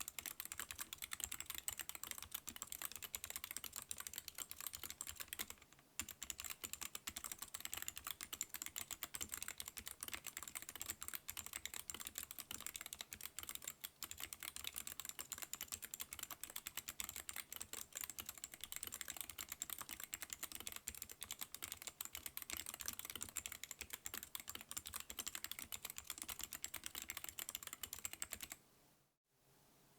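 Slow typing on a Hansung TFG ART mechanical keyboard with Outemu low-profile clicky switches and PBT pudding keycaps: a steady run of sharp key clicks, with a short pause about six seconds in, stopping shortly before the end.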